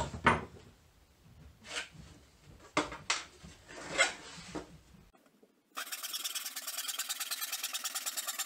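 A few light knocks and taps from tools handled on the board and bench, then about six seconds in a handsaw starts cutting across a wooden fence picket in fast, even strokes.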